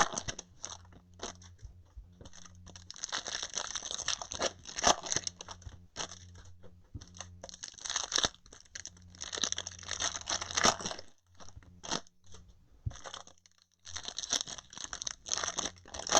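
Baseball card box packaging being torn open and crinkled: plastic wrap and card packs, in several bunches of tearing with short pauses between.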